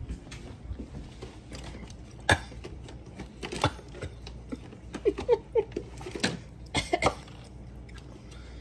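A person tasting something with a bit of kick: a few sharp short coughs and mouth noises. A few brief squeaky sounds come about five seconds in.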